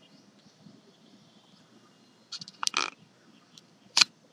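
Faint room noise broken by a few sharp clicks and a short clatter about two and a half seconds in, then one loud, sharp click about four seconds in.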